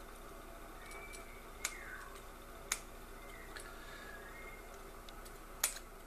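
Scissors snipping stray strands of copper shield braid from a coax cable: three sharp snips, with a few fainter ticks between them.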